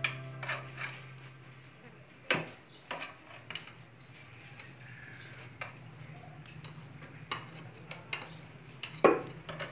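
A thin metal rod tapping and scraping against a flour mill's grinding stone and iron housing as jute sacking is tucked into the gap. It gives a few sharp clicks about two to three and a half seconds in and another near the end, with faint scraping between.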